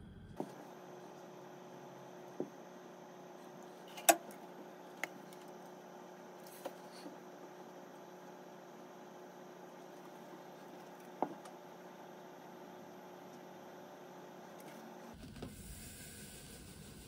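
Quiet room tone with a steady hum and a few light clicks and knocks from kitchen items being handled, the sharpest about four seconds in. Near the end comes a soft hiss of granulated sugar pouring from a plastic measuring cup into a plastic jar.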